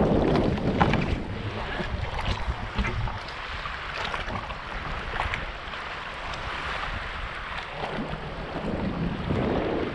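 Wind buffeting the GoPro microphone, heaviest at the start and again near the end, over water sloshing and splashing from a sea kayak being paddled, with brief splashes from the paddle strokes.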